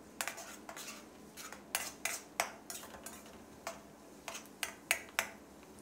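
Metal ladle clinking and scraping against a steel wok in irregular strokes, stirring minced garlic frying in oil to make crispy fried garlic, with a faint sizzle of the oil underneath.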